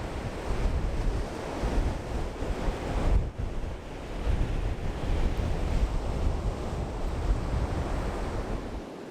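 Wind buffeting the microphone over the steady wash of breaking surf, with a brief lull about three seconds in. The wind rumble drops away just before the end.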